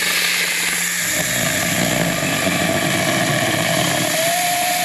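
Saker mini cordless electric chainsaw with a 4-inch bar, running and cutting through a small log. Its motor whine rises slightly in pitch near the end.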